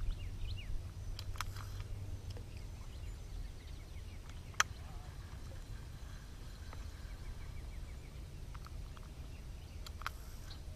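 Pond-bank ambience: a steady low rumble on the microphone, faint bird chirps, and a few sharp clicks from handling a spinning rod and reel during a cast and retrieve. The loudest click comes about halfway through.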